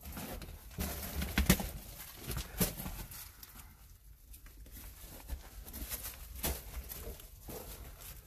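Footsteps crunching and scraping over loose rock, gravel and dry leaves, in irregular steps that are louder and busier in the first few seconds.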